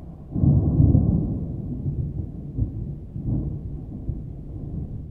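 Thunder: a loud low rumble swells about half a second in, then rolls on and slowly fades with a few smaller swells.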